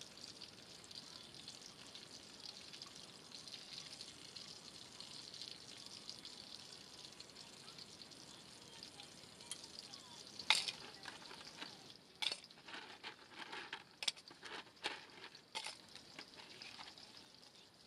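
Food sizzling in a small skillet over a charcoal fire, a steady fine hiss. In the second half come a string of sharp clicks and knocks.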